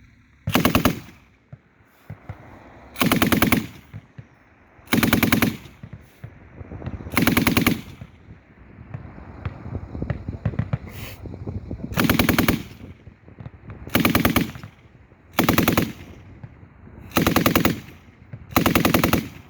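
M240 belt-fed machine gun (7.62×51mm) firing nine short bursts of rapid shots, each about half a second long, spaced roughly two seconds apart.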